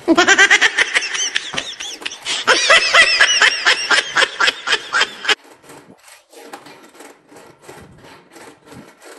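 A burst of laughter, quick repeated 'ha-ha' pulses rising and falling in pitch, that cuts off abruptly about five seconds in, leaving only faint clicking.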